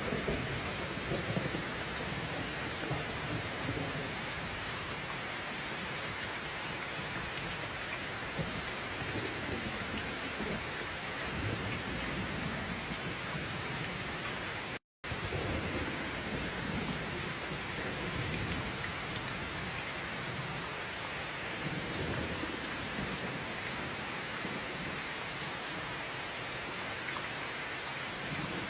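Steady rain pouring down, with low rolling rumbles of thunder rising and fading several times underneath. The sound cuts out completely for a split second about halfway through.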